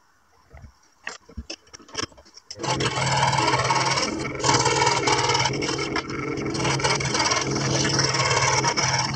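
A few light knocks as a plywood piece is handled on a scroll saw table, then about two and a half seconds in the scroll saw starts abruptly and runs steadily with a low hum, its blade cutting through the plywood with a continuous rasping.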